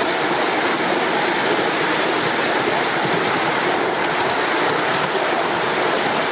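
Miniature ride-on steam train running on raised track, heard from the passenger car: a steady rushing noise of wheels on rail and the locomotive's steam.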